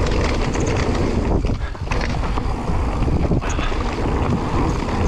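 Wind buffeting the microphone over the rumble of mountain bike tyres rolling down a loose gravel trail, with a few brief knocks from the bike over the bumps.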